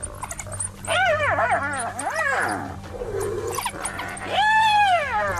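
A wild dog giving high whining yelps: a quick run of short calls that rise and fall in pitch, then one longer, louder arched whine near the end.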